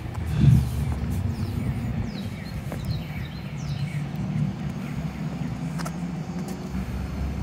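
Outdoor street background: a steady low rumble with a dull thump about half a second in, and a few faint, short, falling bird chirps in the first half.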